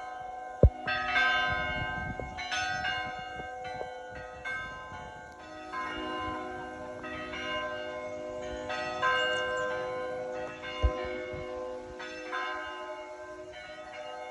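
Church bells ringing to call to service: several bells of different pitches struck in an uneven, overlapping pattern, each stroke ringing on. Two short, sharp low thumps stand out, about a second in and again near eleven seconds.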